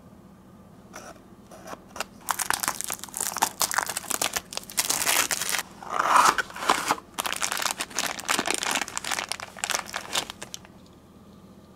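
Unboxing noise: the flap of a small paper toy-car box being pried open, and the clear plastic bag around a diecast model car crinkling as it is handled. A few light clicks come first, then a dense run of crinkling and crackling from about two seconds in that stops shortly before the end.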